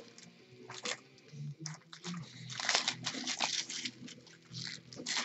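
Foil trading-card pack wrappers crinkling and cards being handled, in short irregular rustles.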